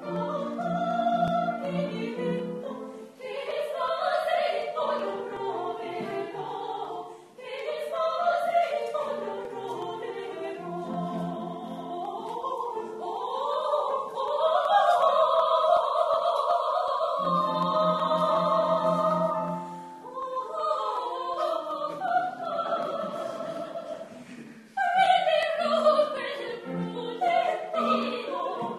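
Two women, a soprano and a mezzo-soprano, singing an operatic duet with vibrato over piano accompaniment, with a long held high note about halfway through.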